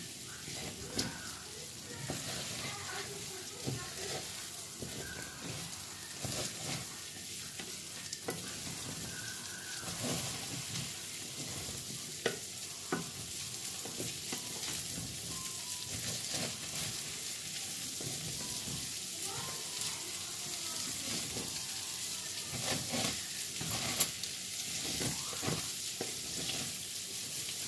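Rice toasting in olive oil in a pot over high heat, sizzling steadily while it is stirred with a wooden spoon, with scattered scrapes and knocks of the spoon against the pot.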